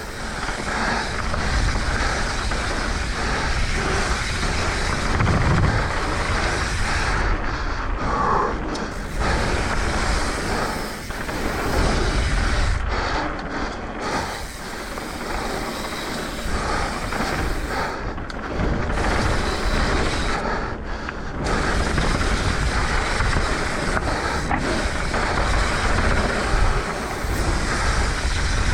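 Mountain bike riding fast down a dirt trail: wind rushing over the action camera and knobby tyres rolling on dirt make a steady rough noise, with a few brief dips in the hiss.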